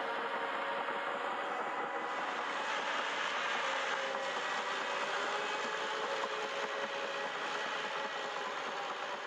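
Steady machine hum with several held tones over an even noise, unchanging throughout.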